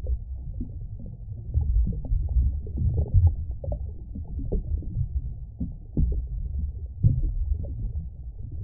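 Deep, muffled rumbling with irregular soft thumps, every high sound cut away so that it has an underwater feel: sound design for an opening title sequence.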